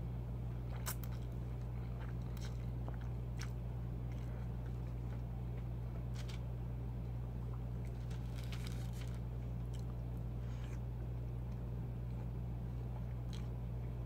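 Close-miked eating of shrimp Alfredo spaghetti: chewing with scattered short wet mouth clicks and smacks, over a steady low hum.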